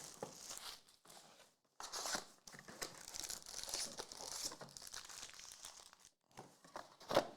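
Trading-card pack wrappers crinkling and tearing as packs are opened by hand, in irregular rustling spurts with a couple of short pauses and a sharper rip near the end.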